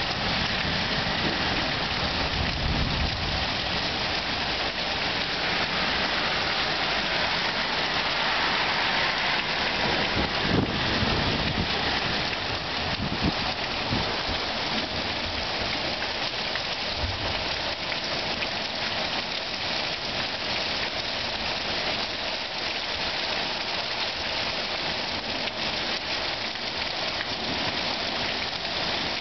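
Steady rain falling during a thunderstorm, a continuous even hiss, with a few brief low rumbles about 2 and 10 seconds in.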